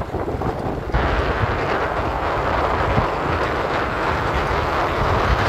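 Steady loud rushing noise with a low rumble underneath, setting in suddenly about a second in.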